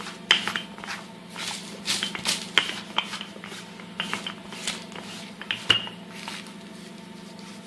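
Wooden rolling pin rolling out dough on a floured silicone mat: irregular sharp clicks and clacks, about a dozen, as the pin and the hands knock against the mat and table. A steady low hum runs underneath.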